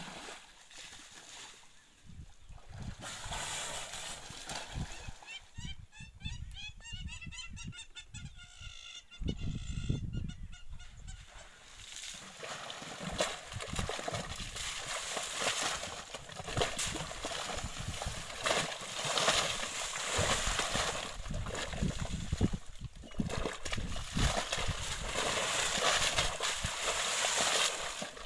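Loud honking animal calls: one wavering call about six to nine seconds in, then dense, repeated calling through the rest.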